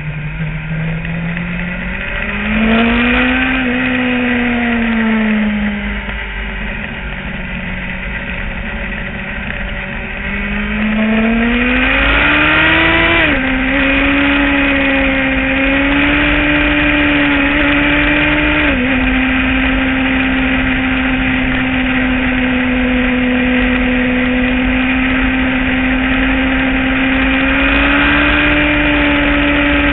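Motorcycle engine under way, the revs rising and easing off twice, then two sudden drops in pitch as it shifts up, then a long steady cruise. Wind rumbles on the microphone underneath.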